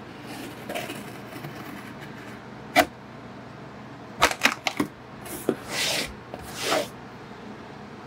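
Utility knife cutting the packing tape on a cardboard shipping box, with the box handled and turned between cuts. A sharp knock comes about three seconds in, then a quick run of clicks and knocks a second later, then two scraping rasps of the blade through tape and cardboard.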